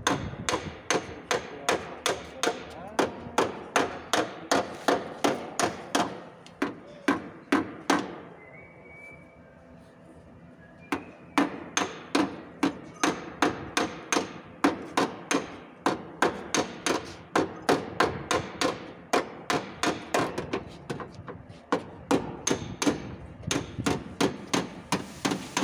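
A hammer striking sheet metal again and again, about two blows a second, with a brief ringing after each: dent repair being hammered out of a car's rear fender panel. The blows stop for about three seconds, then resume.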